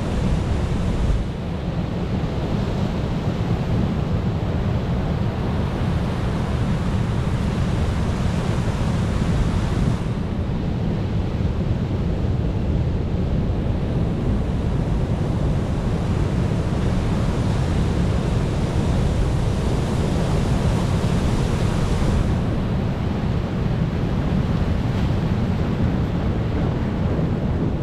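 Ocean surf washing continuously, its hiss swelling and easing over several seconds, with a low wind rumble on the microphone.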